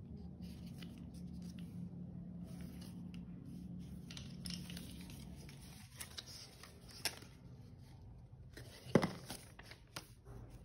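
Paper instruction leaflets and cardboard packaging being handled and unfolded: rustling paper with a few sharp clicks, the loudest about nine seconds in, over a steady low hum.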